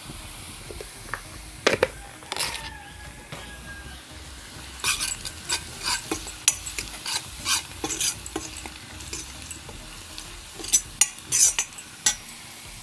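A steel ladle scraping and clinking against a black kadai as fried onions and red chilli powder are stirred, over a steady low sizzle of oil. The stirring strokes come in quick runs from about five seconds in.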